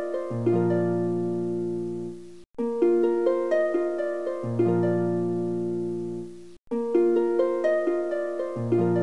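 Background music: a short phrase of plucked, harp-like notes over a held low note, looped about every four seconds and cut off briefly twice between repeats.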